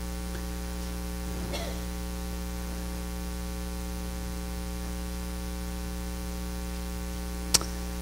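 Steady electrical mains hum on the sound system, with a faint short sound about a second and a half in and a single sharp click near the end.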